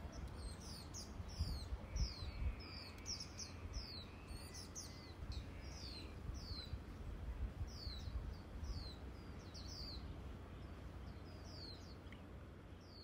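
Small birds chirping: quick, short downward-sliding chirps, several a second at first and thinning out in the second half, over an uneven low rumble.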